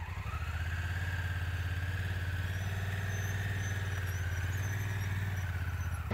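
Honda Africa Twin's parallel-twin engine running at low revs as the loaded motorcycle is ridden slowly up a rutted dirt slope. The engine note picks up slightly in the first second, then holds steady.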